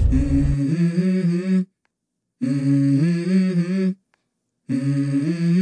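Background music: a wordless, hummed vocal melody in three phrases of held and gliding notes, broken twice by short gaps of complete silence.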